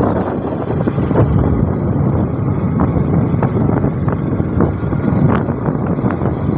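Wind rushing over the microphone of a moving motorcycle, with the engine and road noise under it: a steady loud rumble broken by frequent short gusts.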